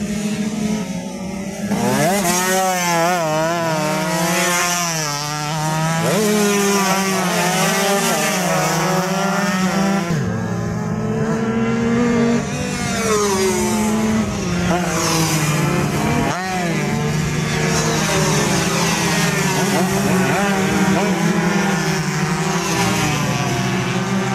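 Two-stroke Yamaha F1ZR-type race motorcycles of the 130 cc class running on the circuit, their engine notes rising and falling again and again as they rev and shift, over a steadier engine drone.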